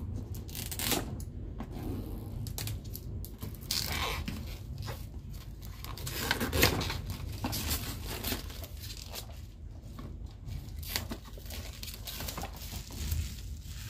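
Packing tape being slit and torn on a cardboard box, then irregular rustling of cardboard and crinkling plastic wrap as the box is opened and the contents come out.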